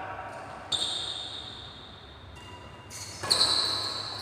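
Badminton rackets striking the shuttlecock in a rally: two sharp hits, about a second in and about three seconds in, each followed by a short, fading ring.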